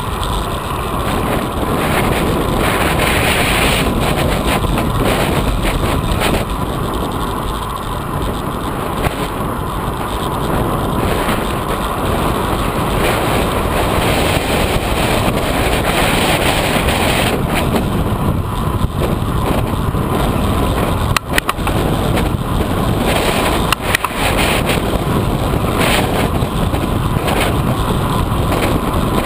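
Steady loud rush of wind on the microphone of a camera mounted on a moving road bike, with two brief knocks about three seconds apart late on.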